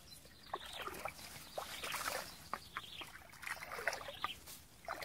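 Irregular small splashes and rustles of someone moving through shallow muddy water and brush, with a few short water plinks.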